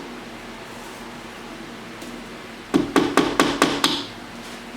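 A hammer driving a small nail into a wall: about six quick blows, a little under three seconds in, each with a short ring.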